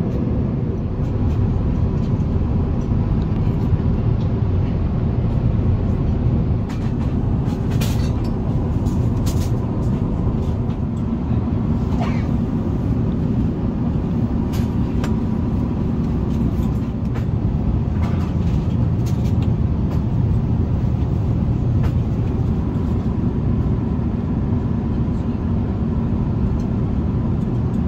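Airbus A350 cabin noise: the steady, dense rumble of the jet engines and the air around the fuselage, with a few light clicks now and then.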